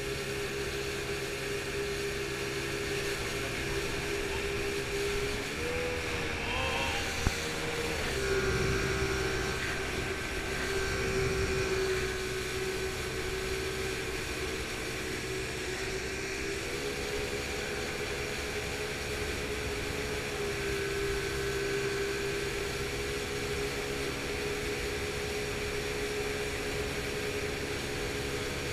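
Motorboat engine running steadily under way on a river, its pitch rising and settling a little a few times, over the rush of water and air. One sharp knock about seven seconds in.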